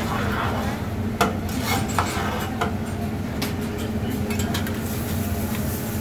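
A hibachi chef's metal spatulas scraping and clicking on the steel griddle, with several sharp clinks scattered through, over a steady low hum.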